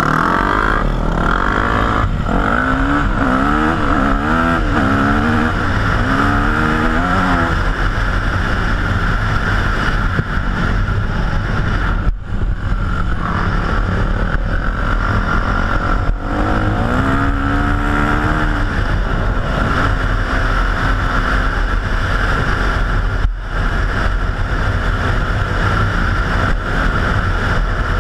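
Yamaha YZ250F dirt bike and Yamaha YFZ450 sport quad engines riding together, revving up through the gears in several rising sweeps, with brief dips in engine sound about twelve, sixteen and twenty-three seconds in as the throttle is closed for a shift.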